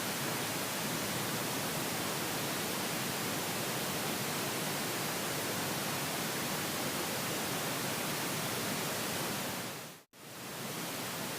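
Surround-sound speaker test signal: a steady hiss of test noise with little deep bass, fading out briefly about ten seconds in and fading back in.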